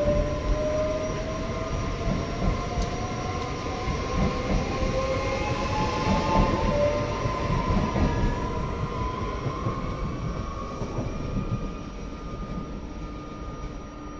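Trenitalia Pop ETR104 electric multiple unit pulling out of the station. Its traction motors whine in a set of tones that rise in pitch as it accelerates away, and the sound fades toward the end.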